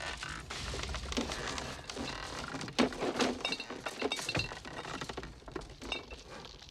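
Film sound effects: a string of knocks, cracks and heavier crashing thuds, like wood and debris breaking, strongest in the middle and dying away near the end.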